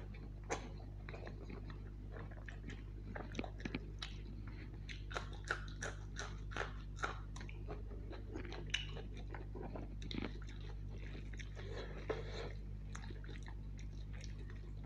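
Close-miked mouth chewing of rice and chicken curry eaten by hand: many wet, sharp clicks and smacks, several a second, over a steady low hum.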